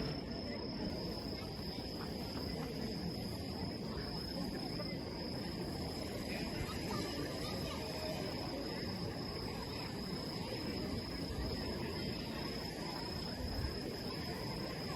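Crickets trilling steadily, one unbroken high-pitched tone, over low, even outdoor background noise.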